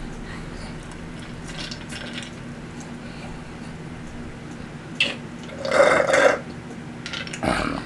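Drinking from a plastic cup: short slurping and gulping sounds about five and six seconds in and again near the end, over a faint steady hum.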